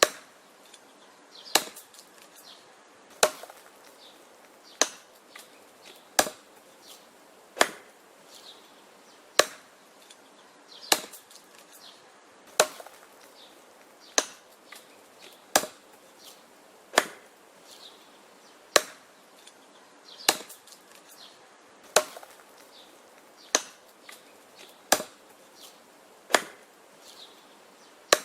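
Axe chopping wood in a steady rhythm: a sharp, loud strike about every one and a half seconds, each followed by a few lighter knocks.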